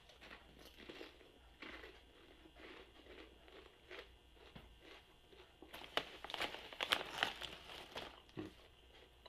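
Faint crunching of Lay's potato chips being chewed. Around six to seven and a half seconds in comes a louder run of crackling, with the crinkle of the foil chip bag as a hand reaches into it.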